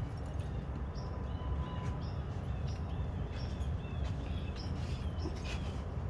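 Small birds chirping repeatedly in short, high calls, about two or three a second, over a steady low outdoor rumble.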